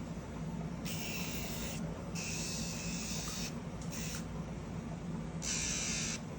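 Electric dog nail grinder running with a steady motor hum, breaking into a hissing grind several times as it files a puppy's nails.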